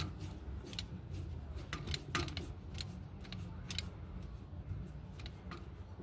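Irregular small clicks and taps of a screwdriver and fingers working on a washing machine's plastic drain pump housing, over a low steady rumble.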